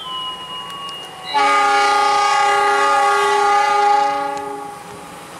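Train locomotive's horn sounding one steady blast of about three and a half seconds, starting just over a second in: semboyan 35, the Indonesian railway horn signal given as a train is about to set off.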